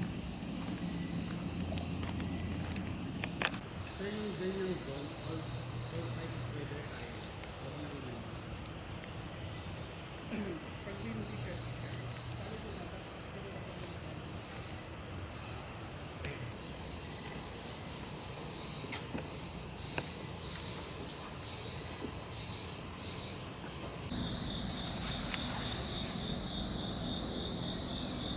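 Forest insects, crickets or similar, trilling in a steady high-pitched chorus. The chorus changes abruptly near the end.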